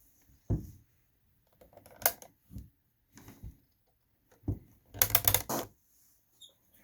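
Plastic clicks and knocks from a Sony Dream Machine ICF-C30W clock radio being handled, with irregular single knocks and a quick cluster of sharp clicks about five seconds in.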